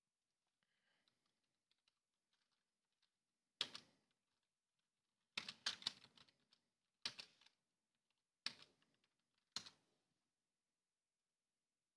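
Computer keyboard typing in several short quick runs of keystrokes, with pauses between the runs.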